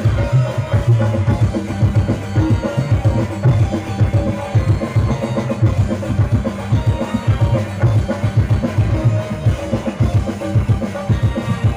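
Live dangdut band music played loudly through a PA, with a driving drum beat and a heavy bass line.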